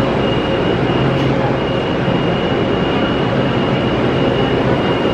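Metro-North M8 electric multiple unit standing at the platform. Its rooftop air-conditioning and electrical equipment runs with a steady rumble and a thin, constant high whine.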